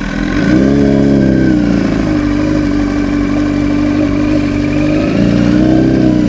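Sport motorcycle engine running at low revs during a slow U-turn. The revs rise and fall back twice, briefly about half a second in and again about five seconds in.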